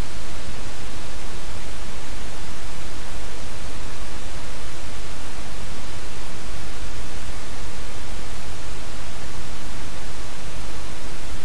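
Loud, steady static hiss spread evenly across all pitches, heaviest at the low end, with no other sound.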